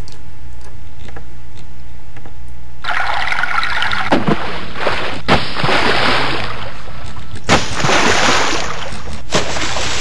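Running water splashing and trickling, starting loud about three seconds in with a few sharper splashes, over a steady low hum.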